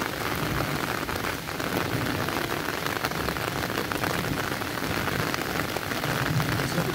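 Steady rain falling on open water, a dense patter of drops hitting the surface.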